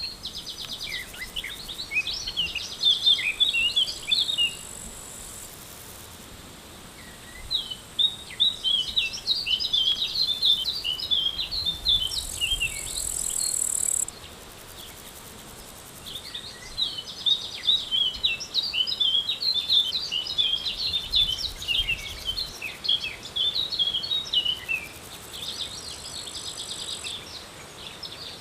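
A songbird singing long, fast, twittering phrases, four of them with short pauses between, over a thin, high insect buzz that comes and goes.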